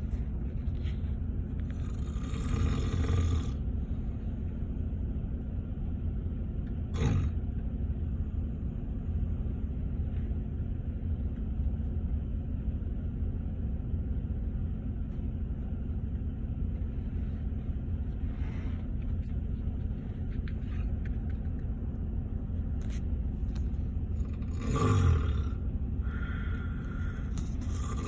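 A man snoring very loudly in a bus seat: a few heavy snores, about two seconds in, again at about seven seconds, and loudest near the end, over the steady low rumble of the night bus's cabin.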